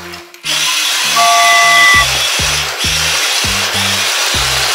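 Background music with a bouncing bass line, kicking in about half a second in, and a short held high tone near the start.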